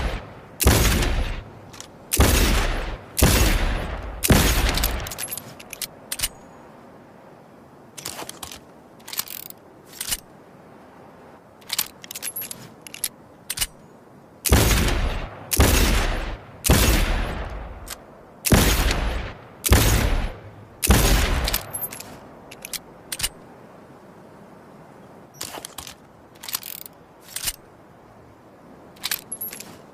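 Revolver sound effect: single gunshots about a second apart, each with a ringing tail, then several seconds of small metallic clicks and rattles like a cylinder being reloaded. The pattern repeats with a run of six shots starting in the middle, followed by more clicks near the end.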